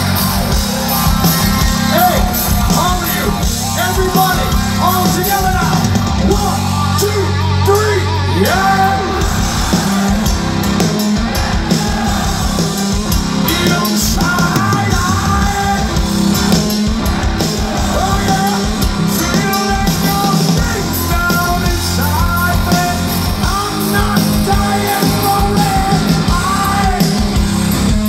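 Live heavy rock band playing loud: a singer sings and yells over electric guitar, bass and drums, heard from the audience at an amphitheatre.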